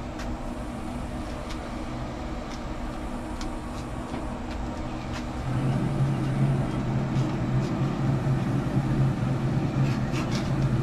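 A steady low machine hum that grows louder about halfway through, with a few faint ticks.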